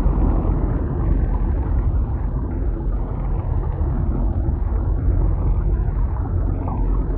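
Synthesized thunder: a continuous low, dense rumble that keeps steady throughout, with no sharp crack.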